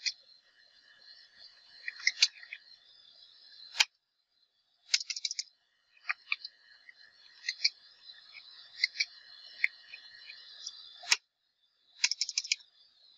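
Computer keyboard keystrokes typing terminal commands: irregular clicks, some single and some in quick runs of several, over a faint steady hiss.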